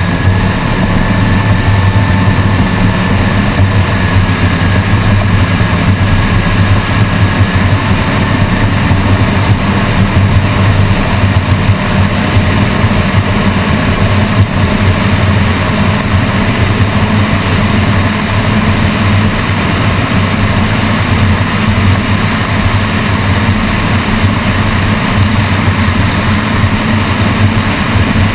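High-performance powerboat engines running steadily at speed, a constant low drone with the rush of wind and water over it.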